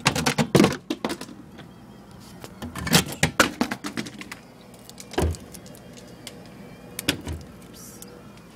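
Handling noise: clusters of sharp clicks and knocks as bottles and containers in a refrigerator are jostled and the phone is moved about, with a low thump about five seconds in.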